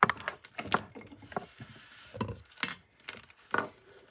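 Handling noise: a string of irregular clicks and knocks of small hard objects being moved and touched close to the microphone.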